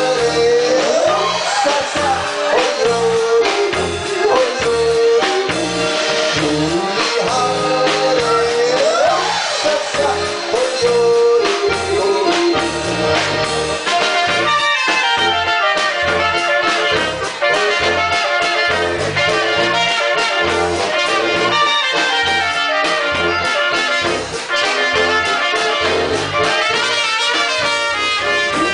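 Live German oompah music from a small Alpine band. Tuba, trumpets, accordion and drums play a lively tune over a steady oom-pah beat.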